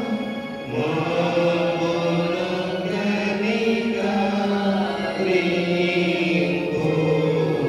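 A man's voice chanting a slow liturgical hymn into a microphone, in long held notes that step from pitch to pitch.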